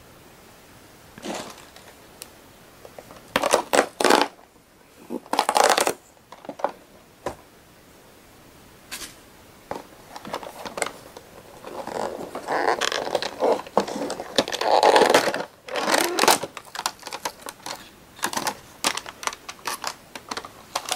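A cardboard snack box being handled and opened by hand: irregular bursts of paperboard rustling and scraping, with a longer stretch of rustling about halfway through. Near the end comes quick crinkling of the snack's foil-lined inner pouch.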